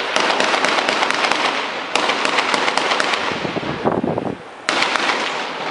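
Rapid gunfire, a dense crackle of many shots in quick succession. It runs for about four seconds, breaks off briefly, then starts again near the end.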